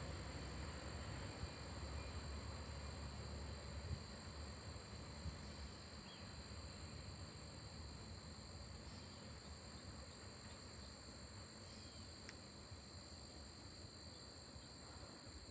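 Faint, steady insect chorus, two high unbroken pitches, over a low rumble that eases off about four seconds in.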